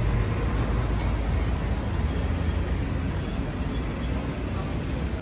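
Steady low rumbling city street noise, with no distinct event standing out.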